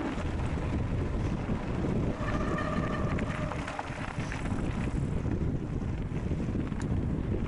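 Wind buffeting the microphone and the rumble of mountain-bike tyres rolling fast over gravel, with a brief whine about two seconds in and a few light clicks near the end.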